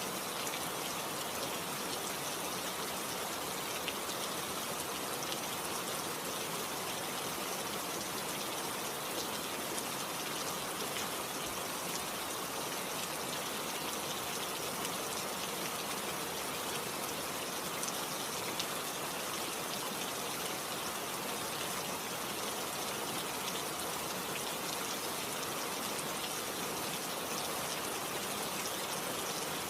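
Steady rain falling, an even hiss with scattered faint drop ticks and no change in intensity.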